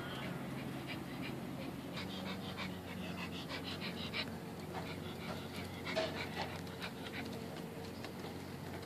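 A small dog panting in short repeated breaths, over a steady low hum.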